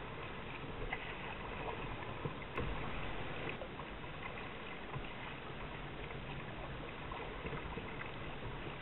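Choppy water lapping and splashing against a kayak's hull: a steady rush of small waves with scattered light slaps.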